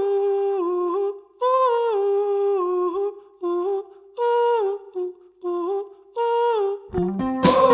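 Intro music: a wordless hummed melody in short phrases with gliding notes, then a band with guitar comes in near the end.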